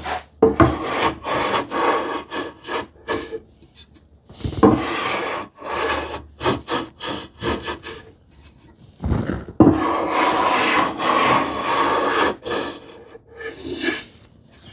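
Hand plane shaving the edge of a wooden drawer side in repeated strokes, several short passes and then a long pass of about three seconds after the middle. The planing is levelling the drawer sides' lower edges flush.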